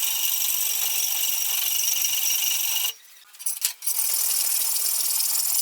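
A power tool working on material: a loud hissing grind with a steady whine in it. It stops for under a second about three seconds in, then starts again.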